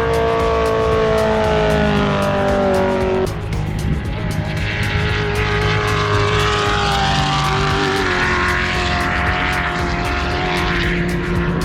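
Off-road race vehicle engines running hard as they go past, their pitch slowly falling, with an abrupt change about three seconds in to another engine falling away in pitch over a rushing noise.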